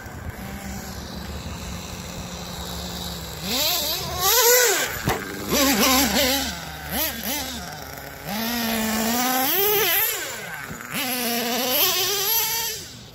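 Small nitro engine of a Red Cat Earthquake 3.5 RC monster truck idling steadily, then revved hard in repeated bursts from about three seconds in, its pitch climbing and dropping with each throttle blip as the truck is driven.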